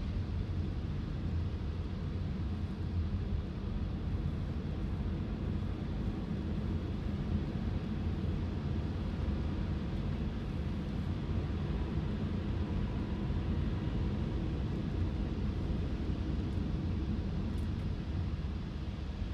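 Steady low rumble of a car driving on a wet freeway, heard from inside the cabin: road and tyre noise on rain-soaked pavement.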